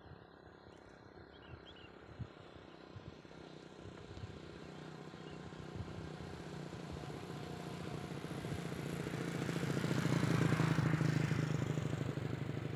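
A motorcycle approaching, its engine growing steadily louder, passing close about ten seconds in and then starting to fade.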